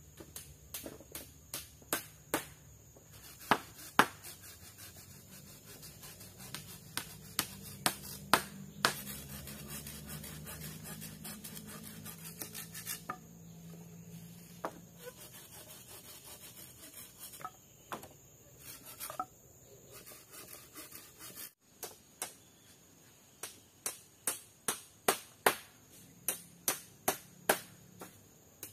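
Sharp knocks of a tool striking wood, irregular at first, then an even run of blows about two a second near the end. A faint low hum sits underneath through the first half.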